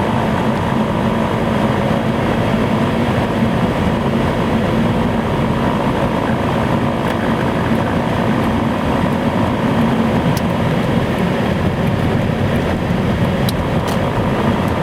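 Pontiac Vibe's cabin blower motor fan running, a loud steady rush of air with a constant hum and a higher steady whine: the very noisy sound of a faulty blower motor.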